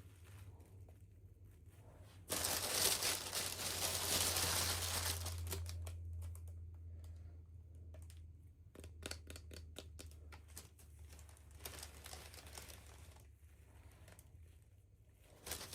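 Toy packaging crinkled and torn open by hand. A loud rustling burst starts about two seconds in and tapers off over several seconds. Scattered small clicks and rustles follow, and another short burst of crinkling comes near the end.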